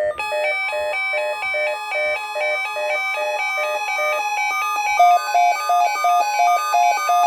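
Weather radio's electronic alert tone sounding for an incoming watch: a fast repeating pattern of beeping chime notes. About five seconds in it changes to a different, lower repeated beep.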